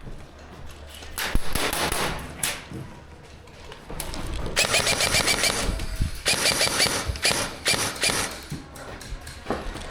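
Airsoft guns firing in rapid automatic bursts: a short burst about a second in, then longer strings of fast clicking shots from about halfway through to near the end.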